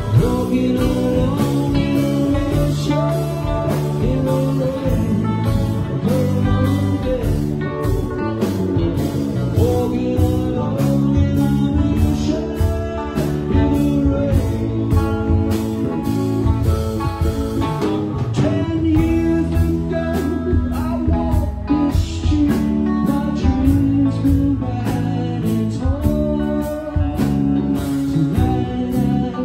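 Live rock band playing: electric guitar, electric bass and keyboards over a drum kit keeping a steady beat.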